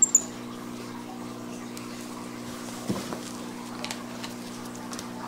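Two short, high squeaks right at the start, the chirps of a white-faced capuchin monkey, over a steady low hum, with a few faint taps later on.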